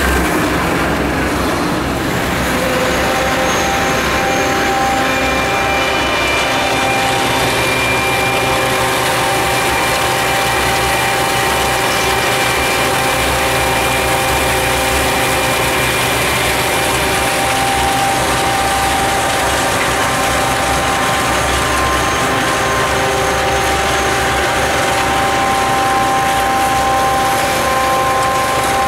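Rhaetian Railway rotary snow blower Xrotmt 95403 at work, its twin cutter drums turning and throwing snow: a loud, steady mechanical din over a low rumble, with several steady whining tones held throughout.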